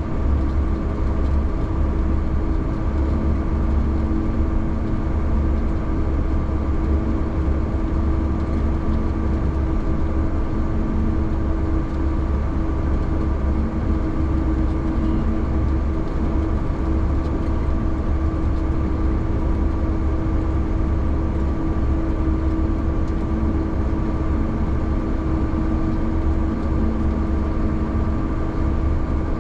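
A vehicle engine running steadily at an even speed: a constant low drone with a steady hum over it.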